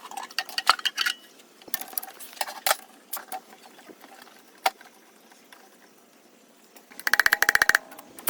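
Scattered metallic clinks and knocks of small parts and tools handled on a hard surface, then a rapid rattle of clicks about seven seconds in.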